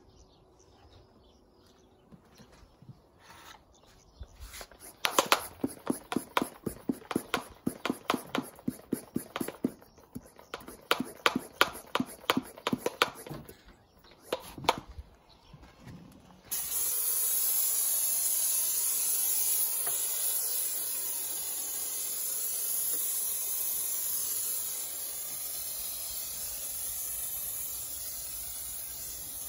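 Kwazar Venus hand-pump foam sprayer: quick repeated pump strokes for about ten seconds, pressurising the tank. Then, about halfway through, a sudden steady hiss as foam sprays from the nozzle.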